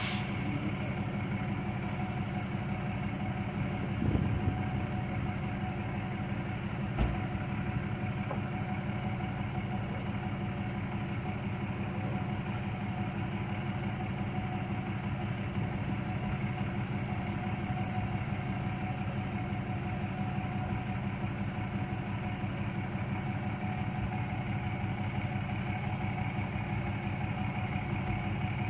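Vehicle engine idling steadily, with a couple of brief knocks about four and seven seconds in.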